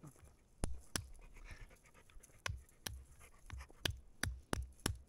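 Repeated sharp knocks, about nine irregular strikes, as a very hard-shelled walnut is struck to crack it open.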